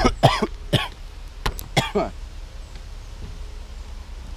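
Brief vocal sounds from a man, with a couple of sharp clicks or knocks about a second and a half in, then only a low steady rumble.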